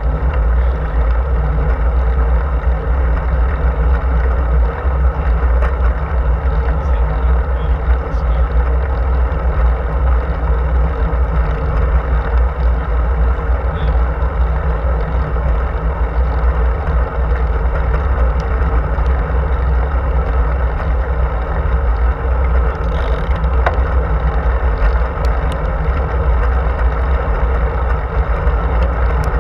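Steady low rumble of wind buffeting a handlebar-mounted camera's microphone, mixed with road noise from a road bike rolling along asphalt.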